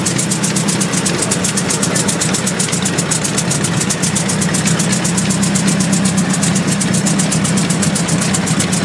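Engine of a 1918 R & P steel-wheeled tractor running steadily at an even, unchanging speed, with a fast regular beat of firing pulses.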